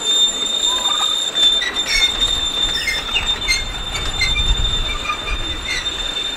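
Miniature NZR EC class electric locomotive hauling ride-on cars along the track, with a steady high-pitched whine and irregular clicks of the wheels over the rails. A low rumble swells about four to five seconds in as the train passes close.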